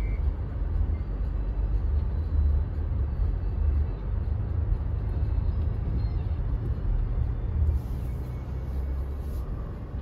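Steady low rumble of a 2021 Toyota Tacoma driving through about three inches of snow on BFGoodrich KO2 all-terrain tyres, heard from inside the cab: engine and tyre noise.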